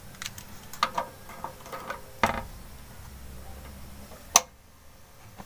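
Plastic clicks and knocks of multimeter test probes being handled and pushed into the sockets of a power inverter's AC outlet, with one sharp click about four and a half seconds in. A faint low hum runs underneath and drops away after that click.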